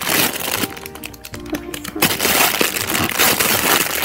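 Crackling and crinkling of a squishy's plastic packaging as it is handled, over background music.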